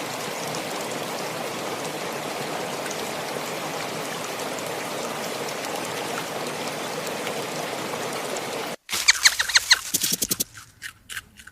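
Steady rushing noise like running water that cuts off suddenly near the end, followed by a quick series of high-pitched chirps or squeaks from a small animal.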